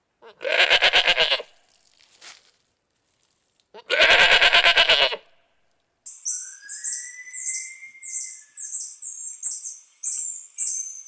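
Two trembling bleats from a sheep or goat type animal, a few seconds apart. About halfway through, a quick series of short, high chirps starts, roughly two or three a second, and runs on.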